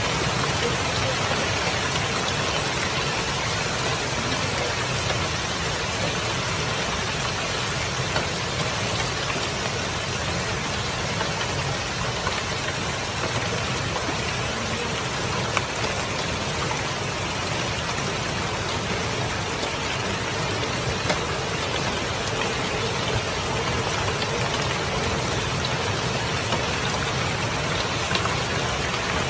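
Hailstorm with heavy rain pelting down on a street and parked cars: a steady, dense hiss with a low roar beneath it and a few sharper hits.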